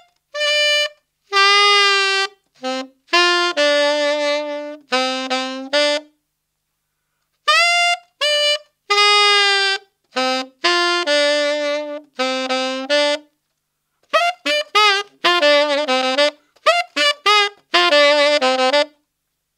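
Solo tenor saxophone playing a slow bluesy lick in E minor, unaccompanied, in three phrases with short pauses between. The flattened fifth, B flat, is bent down with the larynx almost to A, and the low D is ghosted so it is hardly heard.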